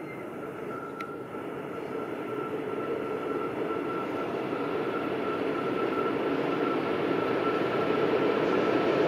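Long freight train of loaded open wagons, hauled by a Škoda 59E electric locomotive, rolling past on the rails. The rumble grows steadily louder as the wagons come nearer, with a faint steady high tone over it.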